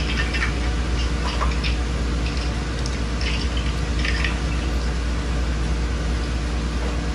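Chicken wings frying in hot grease in a pan: a steady sizzle with a few faint crackles, over a low steady hum.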